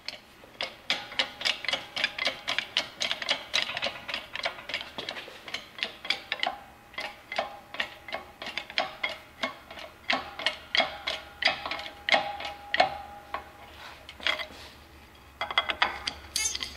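Shop press driving a needle bearing into a planetary gear housing, with rapid irregular clicking, about five or six ticks a second, over a faint steady tone.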